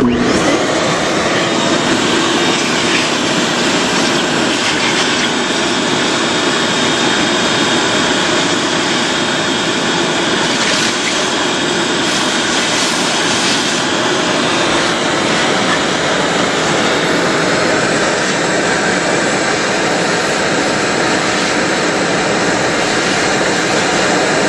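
Vacuum cleaner running steadily with a constant whine and rush of air as its hose sucks up dirt.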